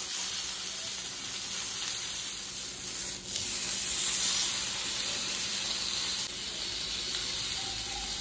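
Chunk of beef shoulder sizzling steadily in hot oil in a frying pan as its sides are seared. The sizzle dips briefly about three seconds in, then comes back louder.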